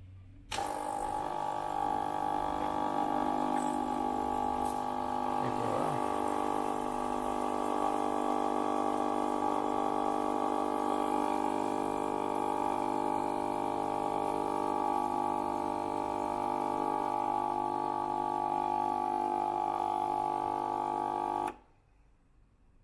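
Gaggia Viva Deluxe espresso machine's vibratory pump running steadily while the machine is primed, pushing water out through the Panarello steam wand. It starts about half a second in and cuts off suddenly near the end.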